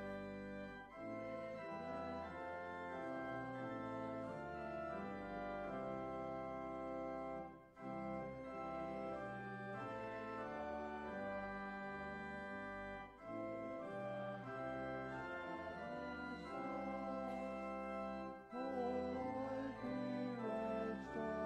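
Church organ playing a slow piece in sustained chords that change every second or two, with short breaks between phrases. Near the end a wavering line comes in over the chords.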